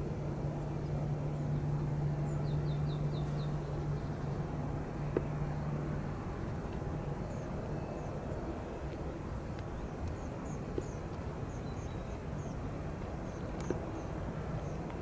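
Steady jet rumble from a landing Airbus A320neo's CFM LEAP engines, with a low hum that is strongest in the first few seconds and then fades. Birds chirp over it in short high chirps, in a quick run of several early on and scattered through the rest.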